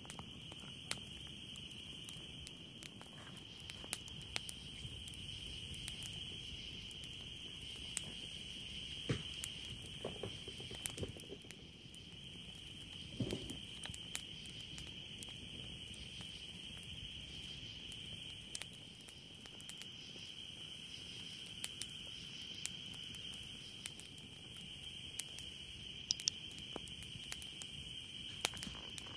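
Campfire crackling with scattered sharp pops and a few duller knocks in the middle, over a steady high-pitched chorus of night insects.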